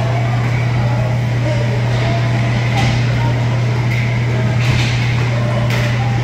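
Inline hockey game play: a few short stick-and-puck clacks and wheel scrapes on the sport-court floor, about three, four and a half and five and a half seconds in, with faint shouts from the players. Under it all is a loud, steady low hum.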